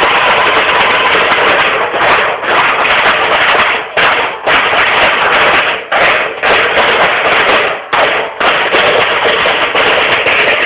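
Marching band snare drums playing a street cadence: a dense, loud drum roll broken by short stops about every two seconds, several of them as two quick breaks close together.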